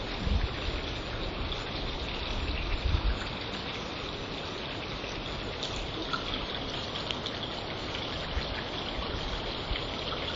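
Steady outdoor hiss of gusty wind with faint pattering as a rain storm moves in. Wind buffets the microphone with low rumbles at the start and again about three seconds in.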